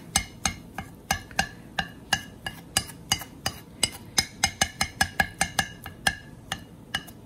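Chef's knife chopping soft canned jackfruit on a stone cutting board: quick, even taps of the blade on the stone, about four a second, each with a slight metallic ring.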